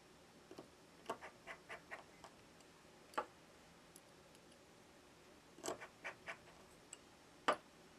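Faint small clicks and taps of tweezers and small parts being handled on a partly reassembled Samsung S20 Ultra 5G's frame. They come in scattered little groups, with the sharpest click near the end.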